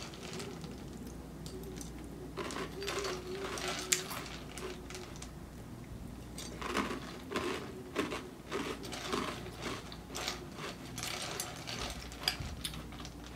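A spoon stirring crunchy cereal in a bowl of milk, making irregular clicks and scrapes.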